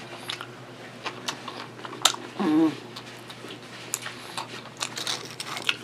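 Close-miked eating sounds of a person chewing a sandwich: wet mouth clicks and lip smacks as she licks dressing from her fingers, with a short hummed vocal sound about two and a half seconds in.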